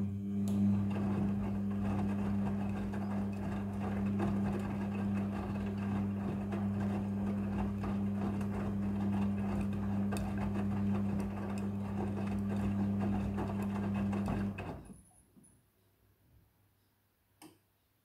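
Midea front-loading washing machine's drum motor running with a steady hum as it turns the drum and tumbles the wet clothes, with a patter of clicks from the load. After about fifteen seconds the motor cuts off and the drum coasts to a stop: the pause between turns of a wash cycle.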